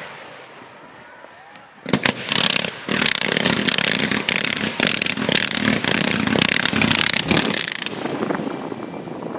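Fireworks going off in a rapid barrage, dense crackling and banging that starts about two seconds in and eases off near the end.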